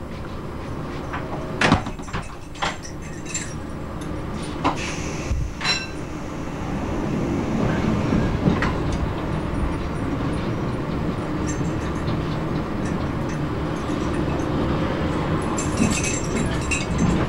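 Train running slowly, heard from on board: a steady low rumble that grows louder from about six seconds in, with sharp clunks as the wheels cross rail joints and points, and a spell of metallic clanking and rattling near the end.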